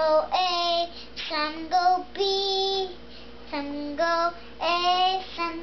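A young girl singing a song of her own making, unaccompanied, in short phrases with some notes held.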